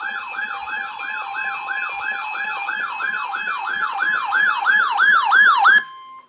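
Weather radio warning alarm: a siren-like tone sweeping down in pitch about three times a second over a steady alert tone, the sweeps slowing and getting louder toward the end. The sweeping stops shortly before the end, leaving the steady tone alone for a moment.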